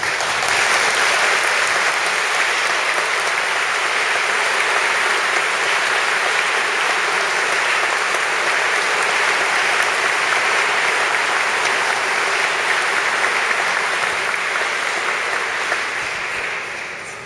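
Audience applauding, a dense, steady clapping that starts abruptly and dies away near the end.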